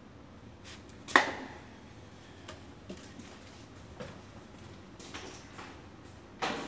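A sharp metallic clank with a brief ring about a second in, a few light knocks, then another clank near the end: metal parts and tools being handled on a workshop bench.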